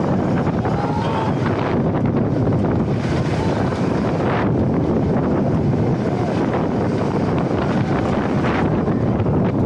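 Loud steady rush of wind across the microphone of a steel launched roller coaster's train running at speed, mixed with the rumble of its wheels along the track, swelling briefly a few times.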